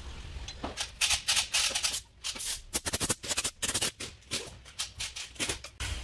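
Compressed-air blow gun fired in many quick, short blasts of hissing air, blowing dirt and leaves off the lower intake manifold area of the engine.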